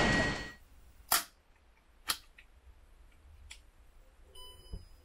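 The tail of the intro sound fades out in the first half second. Then a smartphone being handled on a DJI OM 4 gimbal gives two sharp clicks about a second apart and a smaller tick, followed near the end by a brief electronic tone and a soft knock.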